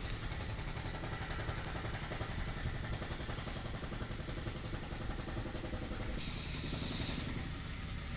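Electric core drill running steadily as it bores the pipe hole through the wall, a continuous motor drone with an even rattle; the tone shifts slightly about six seconds in.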